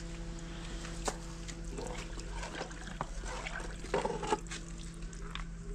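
Water running from an outdoor tap and hose as pots and dishes are washed, with a sharp clink about a second in.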